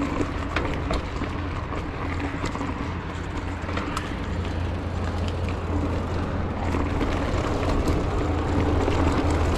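2019 Trek Roscoe 8 hardtail mountain bike riding along a dirt singletrack: tyres rolling over dirt and leaves, with frequent small clicks and rattles from the bike, under a steady low rumble of wind on the microphone.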